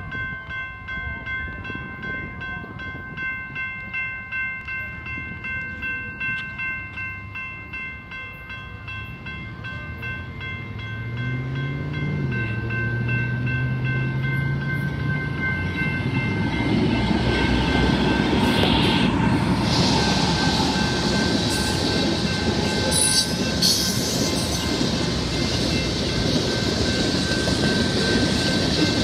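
Railroad crossing bell ringing in a steady pulse while a BNSF freight approaches. The two GE C44-9W diesel locomotives pass about halfway through, their engine pitch rising and then holding. After that the freight cars roll through the crossing with a louder, steady noise of wheels on rails, and the bell keeps ringing over it.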